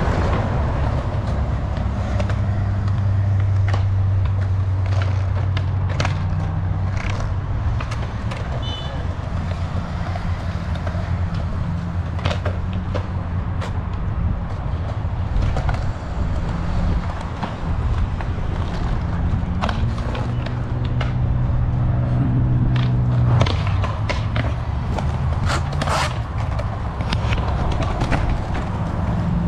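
Skateboard wheels rolling on a concrete skatepark, a steady low drone, broken by many sharp clacks of boards popping and landing.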